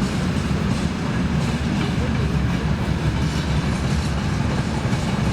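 A steady, unbroken low rumble of outdoor background noise.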